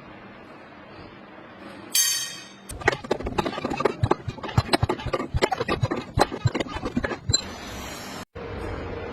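A rapid, irregular run of sharp metal-on-metal clinks and taps, about four to five seconds long, preceded by a single ringing hit. A short hiss follows and then the sound cuts out abruptly.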